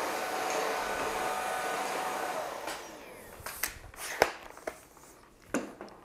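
Whall cordless stick vacuum's brushless motor running with a steady whine, then winding down about three seconds in. A few sharp clicks and knocks follow.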